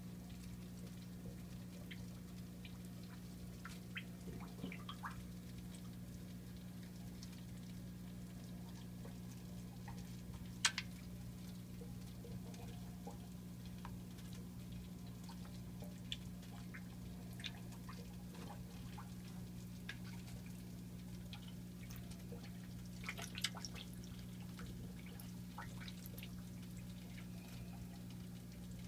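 Goldfish aquarium water: faint, scattered small drips and splashes at the surface, the clearest about ten seconds in and a cluster about twenty-three seconds in, over a steady low hum.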